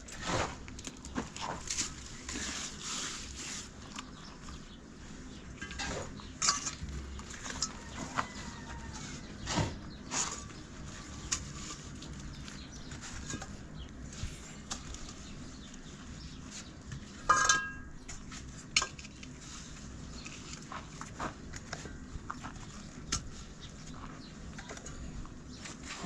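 Scattered light clinks and knocks at irregular intervals over a steady low background, with one louder knock that carries a short ringing tone about two-thirds of the way through.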